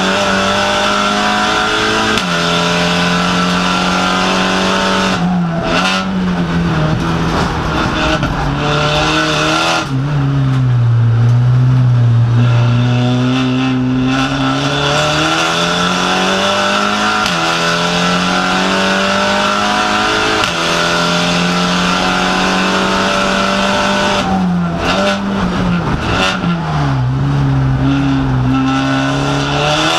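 SEAT Supercup race car's engine at racing speed, heard from inside the cabin: the revs climb through the gears, drop at each gear change and fall low under braking for the corners, lowest about ten seconds in, before rising again.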